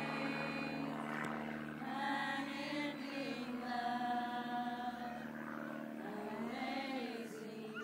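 Small group of women singing a worship song together in slow, long-held notes; the low held tones stop about six seconds in.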